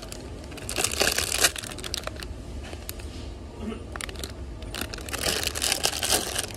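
Plastic candy bags crinkling as they are handled and taken from or put back on a shelf, in two rustling bursts, one about a second in and another around five seconds in, over a low steady hum.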